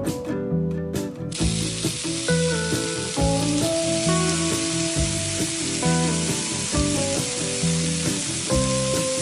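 Oil sizzling steadily in a frying pan as pork-stuffed green peppers pan-fry over low heat, starting suddenly about a second in, with background music underneath.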